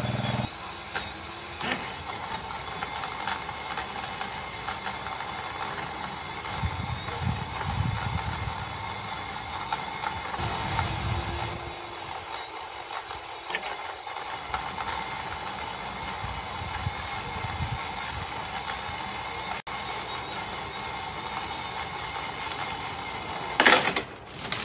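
Small engine of a Troy-Bilt riding-mower tractor running steadily at idle. A sharp, loud knock sounds about a second before the end.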